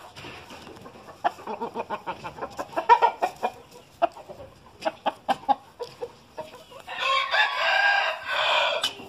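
Gamecock roosters in their pens clucking in short repeated notes, then one rooster crows loudly near the end, a long call of about two seconds.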